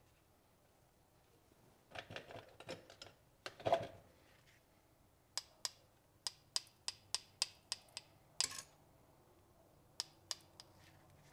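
Handling rustle, then a run of small sharp taps at about three a second and three more near the end: a hand tool tapped against a digital pocket scale's weighing pan as gold is loaded to be weighed.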